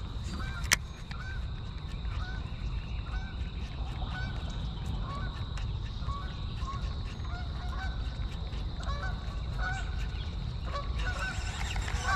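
Waterfowl calling in the background: short honk-like calls repeated several times a second, over a steady low rumble. There is a single sharp click just under a second in.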